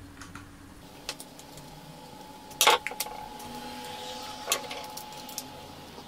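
A few light clicks and taps of a screwdriver and crimped wire ends being handled at a fridge compressor's plastic terminal block, as the power cord's conductors are fitted to it. The loudest knock comes a little before halfway, another about three quarters through.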